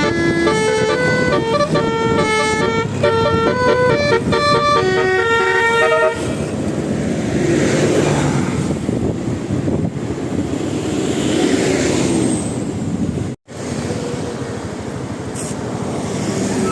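Bus telolet horn playing a quick melody of stepped notes for about six seconds, then stopping. Vehicle and road noise follows, swelling and fading twice, with a momentary break in the sound about thirteen seconds in.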